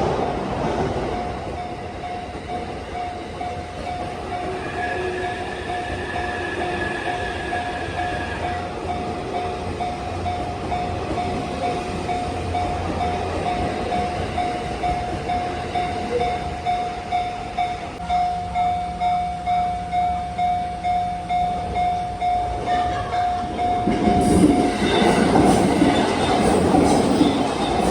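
Japanese level-crossing warning bell ringing in a quick, even repeat, joined about 24 seconds in by a Narita Express E259-series electric train running through the crossing with the rumble and clatter of its wheels.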